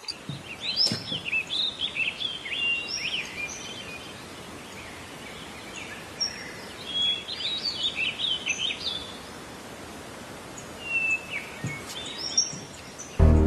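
Small birds chirping in several bouts of quick, gliding calls over a steady background hiss; music comes in near the end.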